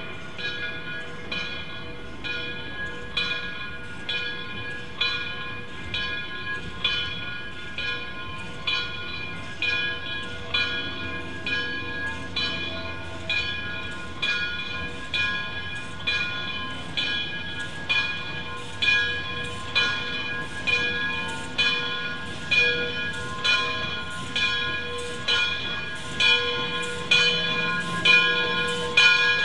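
A railway locomotive's bell ringing steadily, about one strike a second, growing louder toward the end, over the low rumble of the train.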